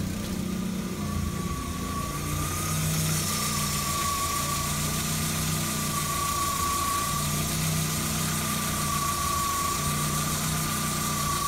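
Audi 100 C4's 2.0-litre AAD fuel-injected inline four-cylinder engine idling steadily, with a thin steady whine running above the engine note.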